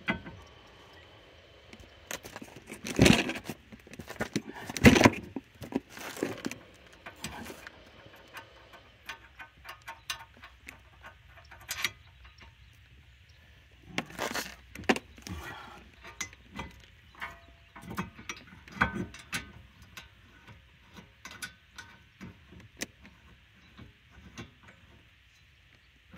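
Metal clinks, knocks and rattles of a 2020 Dodge Charger's front brake caliper bracket and new pads being worked over the rotor while its bolts are started by hand. The loudest clanks come about three and five seconds in and again around fourteen seconds.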